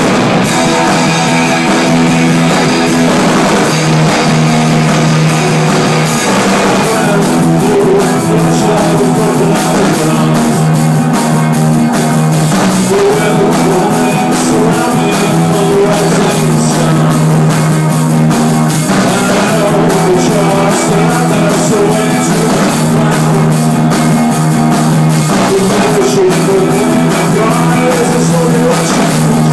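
Rock band playing loudly: distorted electric guitars holding heavy low notes over a drum kit with steady cymbal wash, the drumming growing busier about seven seconds in.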